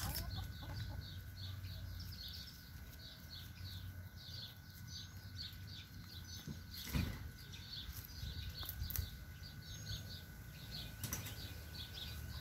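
A small bird chirping over and over, faint short high notes about three a second, with a few brief knocks in between.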